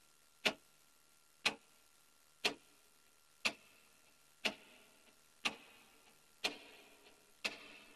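A clock ticking evenly, one sharp tick a second.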